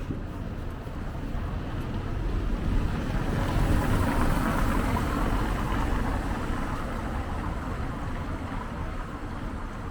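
A vehicle passing on a city street: a broad rush of noise that swells about two seconds in, is loudest midway, and fades away near the end.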